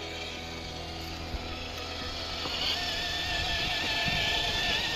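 RC crawler's electric motor and gearbox whining steadily as it drives through grass, the whine rising in pitch and growing louder about halfway through.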